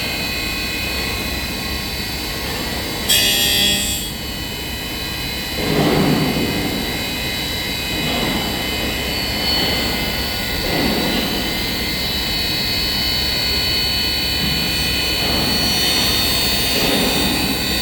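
4-axis CNC fettling machine working a cast hub: a steady high-pitched whine with a sharp burst about three seconds in and several swelling surges as the tool bears on the casting.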